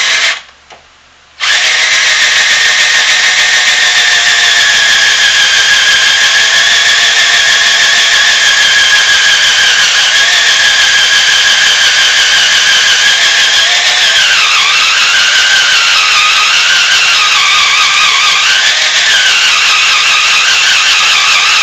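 Drill Master 18-volt NiCd cordless drill whining as its dull bit grinds into aluminum. The drill stops briefly about half a second in, then restarts and runs steadily, with the pitch sagging twice later on as it bogs under the load: the drill is struggling to get through the metal.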